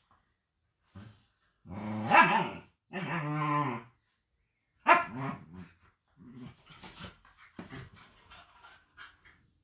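Husky puppy vocalizing. About two seconds in come two drawn-out pitched calls, the second wavering. A sharp bark near the middle follows, then a run of small, quieter yips and grumbles.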